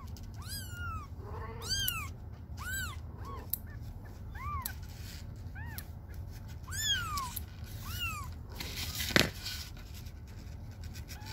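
A very young kitten mewing: about ten short, high-pitched cries that rise and fall, in protest at being held for a claw trim. A single sharp click about nine seconds in.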